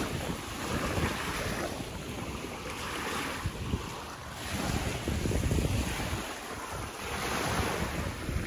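Small choppy waves washing onto a sandy lake shore in repeated surges, with gusty wind rumbling on the microphone.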